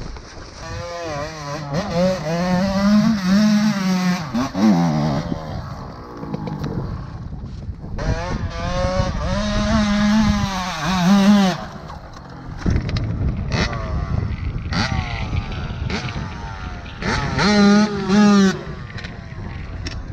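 Dirt bike engine revving hard in three bursts, its pitch climbing and falling within each, as the bike is ridden up a dirt trail. The last burst cuts off suddenly near the end.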